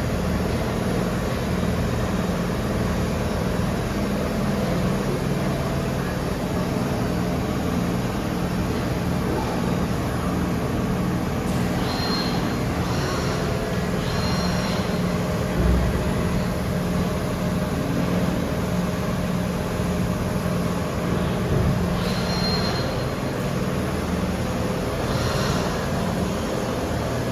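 Micron VCP 710 CNC vertical machining centre running with a steady mechanical hum, broken several times after about twelve seconds in by brief high-pitched squeals and once by a short low thump.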